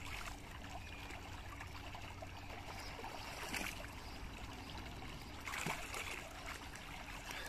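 Swimming-pool water sloshing and trickling as a child swims underwater between a standing man's legs, with brief splashes about three and a half and five and a half seconds in.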